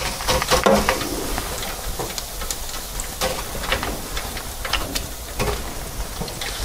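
Freshly fried shrimp tipped out of an electric deep fryer's wire basket, with irregular light clatters and taps.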